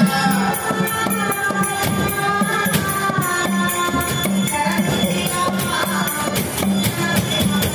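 Live accompaniment to a leather shadow-puppet play: a voice singing a bending melody over a steady, pulsing low drone, with jingling, rattling percussion kept going in rhythm, partly played with the puppeteer's feet.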